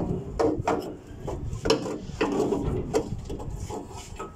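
Irregular knocks, scrapes and rubbing as a gloved hand works on the forklift's loosened exhaust parts, about eight separate strikes; no engine is running.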